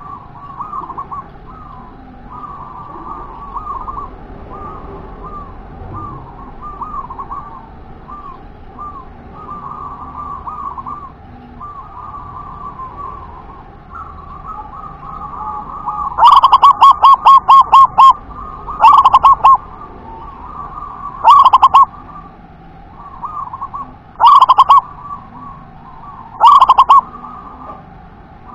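Zebra dove (local perkutut) cooing: a steady run of soft, repeated coo phrases, then from about halfway through, five very loud bursts of rapid staccato notes, the first the longest.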